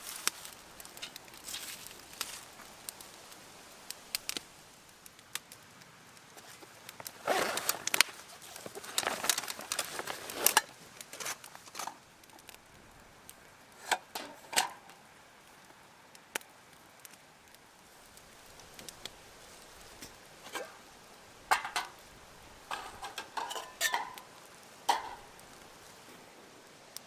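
Clinks and clatter of cooking gear over a campfire: utensils knocking against pots and dishes in a few short bursts, some with a brief metallic ring, between scattered sharp clicks.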